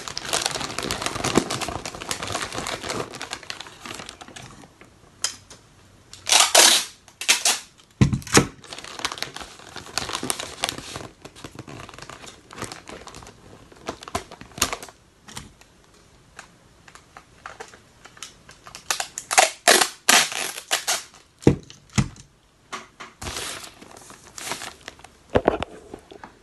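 Wrapping paper crinkling and rustling as it is folded around a box, dense at first, then in scattered handling noises with several short, louder rips and crackles.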